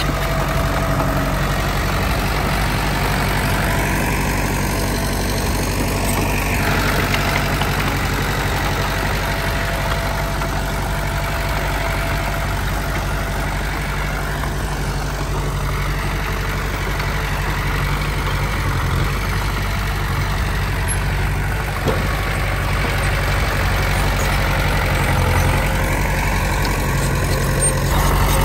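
Heavy earthmoving machine's diesel engine running steadily, with a deep engine hum throughout. A faint whine comes and goes over it, and there is a single short knock past the two-thirds mark.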